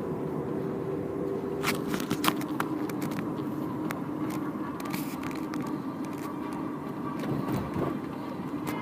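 Car driving, with a steady low road and engine noise inside the cabin and a scatter of sharp clicks and taps between about two and five seconds in.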